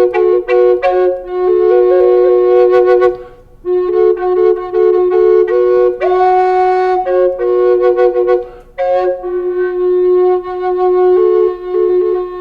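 Spanish cedar double Native American-style flute in F♯ minor played as a double: a melody moves over a steady drone on the root note F♯, in three phrases with short breath breaks.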